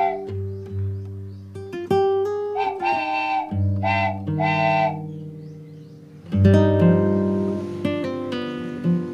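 Background music: plucked guitar-like notes over sustained bass, with a loud new chord about six and a half seconds in.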